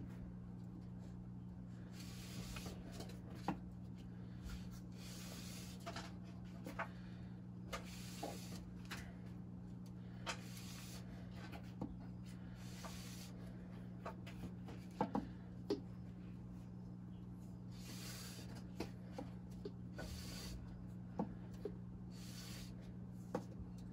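Steel edge of a wood-turning tool drawn by hand over fine wet/dry sandpaper (2500 grit) on glass: slow strokes, each a short hiss of a second or less, every two to three seconds, with small ticks between. A steady low hum runs underneath.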